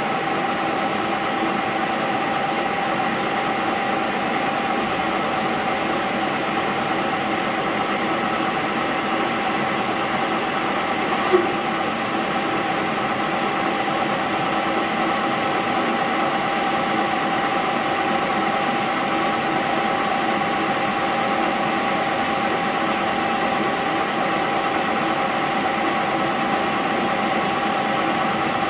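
Mondial Gallic 16 geared-head metal lathe running with its spindle turning a metal shaft under cut: a steady whine from the drive over a steady running noise. One sharp click about eleven seconds in.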